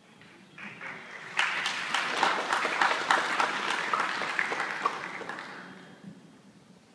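Audience applause, a dense clatter of many hands clapping. It starts about half a second in, swells suddenly at about a second and a half, then dies away gradually near the end.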